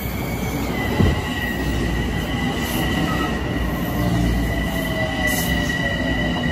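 Metro-North commuter train pulling into the station along the platform, its cars rumbling past close by. A sharp knock comes about a second in, and from then on a steady high-pitched tone rides over the rumble.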